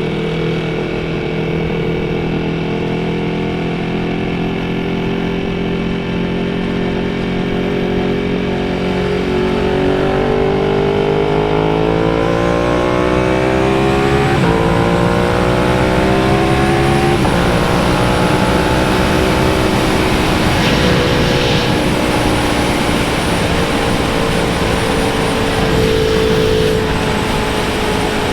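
Motorcycle engine running at a steady cruise, then accelerating hard about a third of the way in: the pitch climbs, drops at two quick upshifts, then settles back to a steady cruise.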